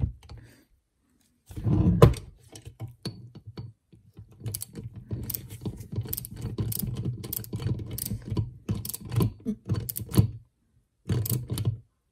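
A small hand ratchet clicks in quick runs as the T25 bolts of a TPI fuel rail are run down. About two seconds in there is a heavier clack from the inch-pound click-type torque wrench reaching its 44 inch-pound setting.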